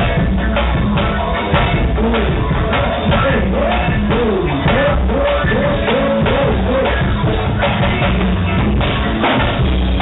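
A live band playing loudly, with drums keeping a steady beat under heavy bass and a melody line that wavers up and down through the middle.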